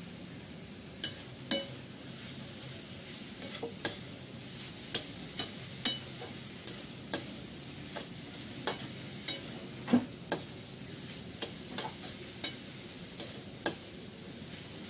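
Spatula clinking and scraping against a metal kadhai as a frying mixture of sukat and raw mango pieces is stirred, with sharp irregular knocks about once a second over a steady sizzle.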